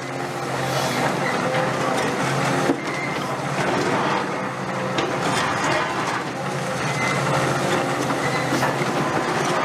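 CAT 330F excavator's diesel engine running steadily under load while its hydraulic concrete pulverizer crushes reinforced concrete, with grinding, crunching and a few sharp cracks of breaking concrete.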